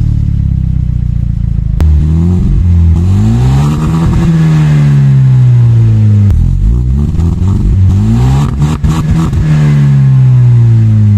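Hyundai Genesis Coupé 2.0T's turbocharged four-cylinder engine idling, then revved twice, the pitch climbing slowly and sinking back each time. It exhausts through 3-inch piping with no catalytic converter and a crude muffler, and the note is a little tinny ("un poco latoso").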